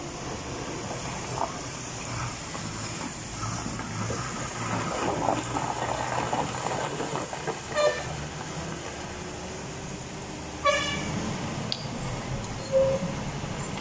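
Heavy diesel goods trucks running slowly through a hairpin bend, engines rumbling. Truck horn toots cut through about 8 seconds in and again, longer, about 11 seconds in, with a short beep near the end.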